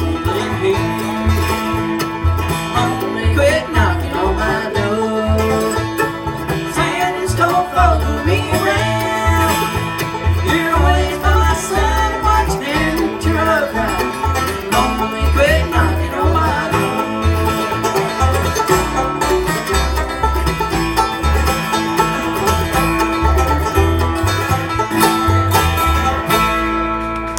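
A bluegrass band plays an instrumental break, with banjo, mandolin, dobro, acoustic guitar and bass together over a steady plucked bass line.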